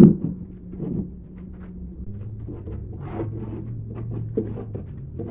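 A sharp knock at the start, a lighter one about a second in, then scattered light knocks and clicks over a low steady hum.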